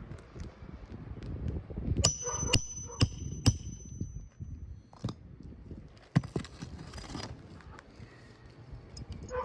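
Roofing repair work on asphalt shingles: four sharp knocks about half a second apart starting two seconds in, with a thin metallic ring hanging on for a few seconds, then a few scattered knocks.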